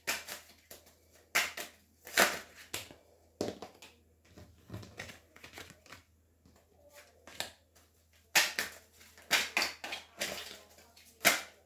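Tarot cards being handled and dealt one by one onto a vinyl-covered table: a run of short, sharp card slaps and rustles, bunched in two spells with a quieter stretch in the middle.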